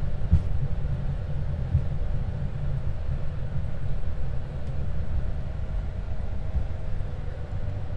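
Cockpit noise of an Airbus A220 taxiing off the runway after landing: a steady low rumble from the idling engines and the rolling landing gear, with a few light bumps as the wheels roll over the taxiway surface.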